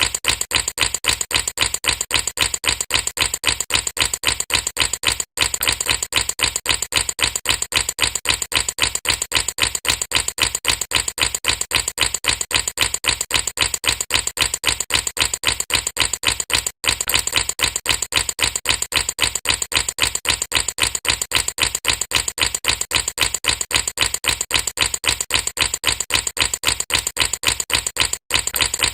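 Air bubbles popping in a steady, even rhythm of about five a second, broken by brief gaps roughly every eleven and a half seconds.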